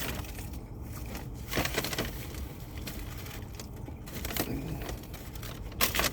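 Irregular crackling and rustling handling noises, with sharp crackles about a second and a half to two seconds in and again just before the end.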